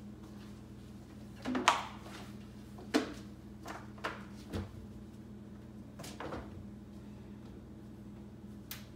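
A series of knocks and clatters from household things being handled, the loudest about a second and a half in and a sharper one near the end, over a steady low hum.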